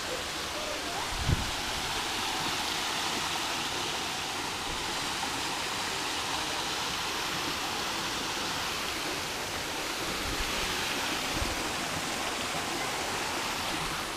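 Small artificial waterfall cascading over a stone wall, a steady rushing splash of falling water. A brief low thump about a second in.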